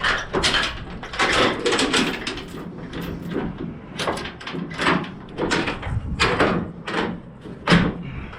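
Steel tie-down chain clanking and rattling as it is handled and fed through a flatbed trailer's rail and stake pockets: an irregular string of sharp knocks, one to three a second.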